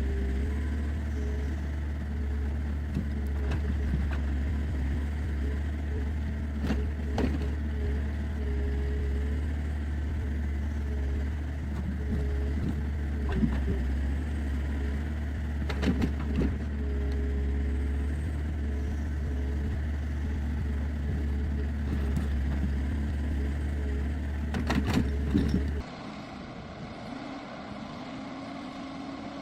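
Engine of a heavy log-handling forestry machine running steadily under load, with occasional sharp knocks and clunks. About four seconds before the end it cuts abruptly to a quieter, different engine.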